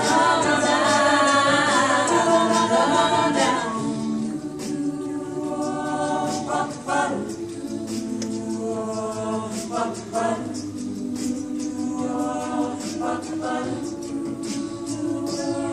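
Mixed-voice a cappella group singing: a loud held chord ends the sung line about three and a half seconds in, then the voices carry on softer with sustained wordless backing chords.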